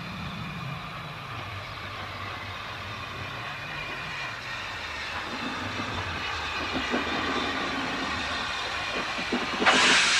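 Hunslet 0-6-0 saddle tank steam locomotive approaching on the track, its running rumble growing steadily louder. Just before the end a sudden loud hiss of steam sets in as steam blows from the cylinder drain cocks.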